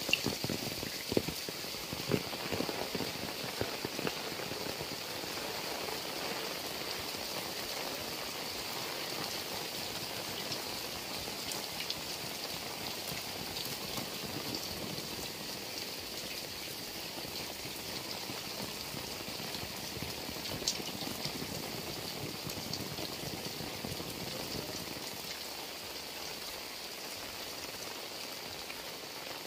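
Heavy rain falling steadily, splashing on wet ground and running off roof edges, with a few sharper drip splashes in the first few seconds.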